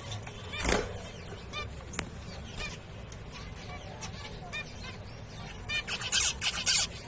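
Several zebra finches calling: many short, nasal chirps overlapping one another. A loud call comes in under a second in, and a denser, louder run of harsh calls begins about six seconds in.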